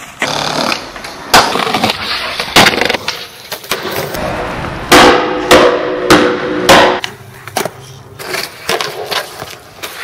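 Skateboard on concrete: wheels rolling and a string of sharp cracks as the tail pops and the board slaps down, several coming close together in the middle.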